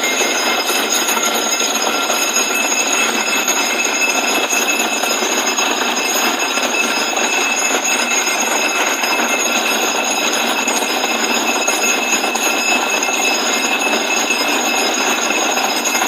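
Borewell drilling rig running steadily: a loud, unbroken mechanical roar of rushing noise with a constant high-pitched whine over it.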